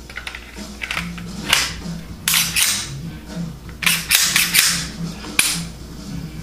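Glock 21SF .45 ACP pistol being reassembled: the slide is run back onto the frame and worked, giving a series of sharp metallic clicks and snaps, loudest in clusters about two and four seconds in.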